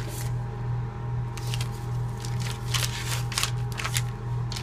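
Coffee-dyed paper pages and tags of a handmade junk journal rustling and crackling as they are handled and turned, a run of short crisp sounds, over a steady low hum.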